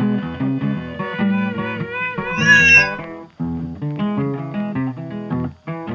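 Gentle instrumental background music with plucked guitar, and a cat meowing once about halfway through, louder than the music.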